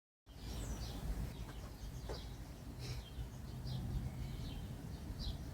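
Small birds chirping, short falling chirps repeated every half-second to second, over a steady low rumble.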